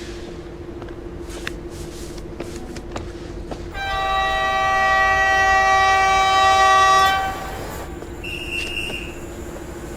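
Train horn sounding once, held for about three seconds, over the steady hum of a train. A short, high squeal follows about a second after the horn stops.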